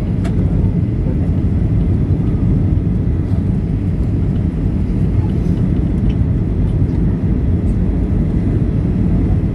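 Steady low rumble of engine and airflow noise heard inside the cabin of a Boeing 737-800 airliner.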